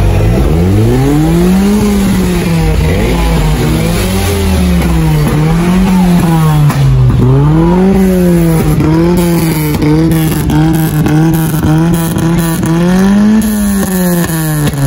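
A parked car's engine being revved over and over, its note rising and falling about every two seconds.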